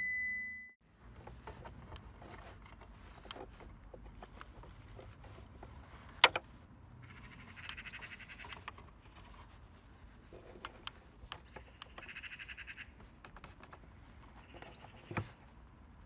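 A steady electronic beep cuts off within the first second. Then small plastic clicks come from a licence-plate lamp socket and T10 LED bulb being handled, with one sharp click about six seconds in, while birds call in two short trills.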